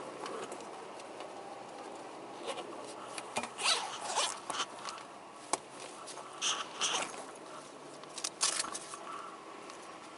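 A zipper on a bag being pulled open and shut in quick rasps, in three bursts, with a few small clicks and handling noises.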